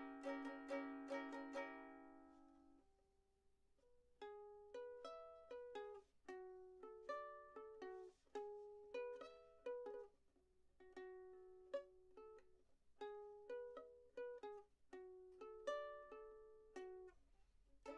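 Quiet background music on a plucked string instrument: a few repeated chords, a short pause, then a melody of single picked notes.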